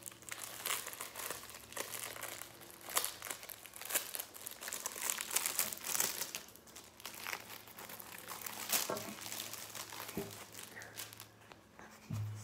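Clear plastic bag crinkling as it is pulled open and handled, a dense run of crackles that thins out over the last few seconds.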